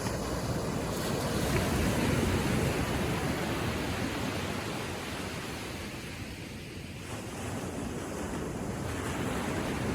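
Gentle ocean waves washing onto the shore in a steady, rushing surf. It swells a second or two in, eases off past the middle, and builds again near the end.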